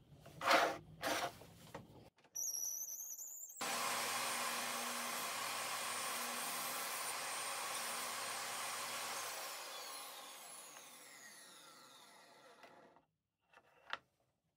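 Table saw switched on about two seconds in and running steadily. It is then switched off, and the blade spins down with a falling whine that fades over the last few seconds. There are two knocks near the start and a sharp click near the end.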